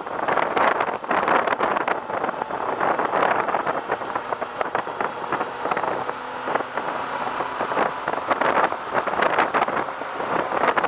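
Wind buffeting the microphone on a moving Suzuki Bandit 1250 motorcycle, with the bike's inline-four engine running steadily beneath it. The wind eases a little around the middle, where the engine note comes through more clearly.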